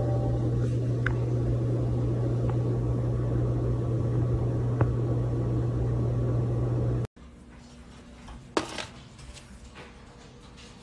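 A steady low mechanical hum with a noisy hiss over it, which cuts off suddenly about seven seconds in. After that a quiet room, with one short knock or scrape.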